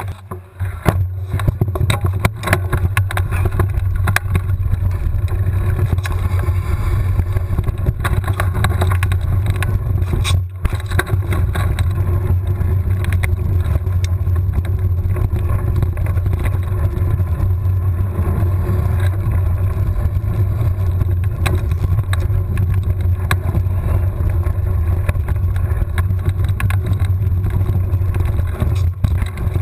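Wind buffeting a handlebar-mounted action camera's microphone, with the rumble and rattle of mountain-bike tyres on a dirt singletrack. It is quieter for about the first second, then stays loud and steady once the bike is moving.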